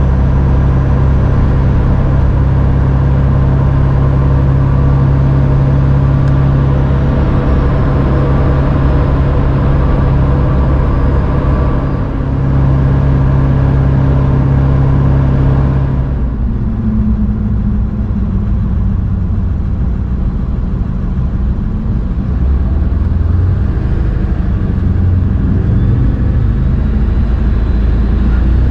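2000 Ford F350's 7.3L turbo diesel droning steadily at highway speed, with tyre and wind noise, heard inside the cab. About halfway through, the hissing road and wind noise drops away, leaving a lower, duller engine and road rumble as the truck slows.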